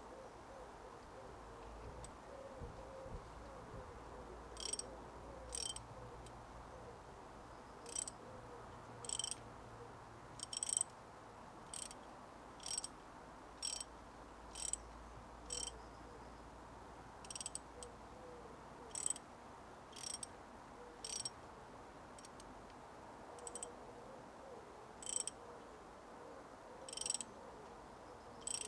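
Ratchet wrench clicking in short bursts on its back-strokes, irregularly about once a second from a few seconds in. A 19 mm socket on the ratchet is tightening a nut splitter's screw, driving its chisel into a seized tie rod lock nut.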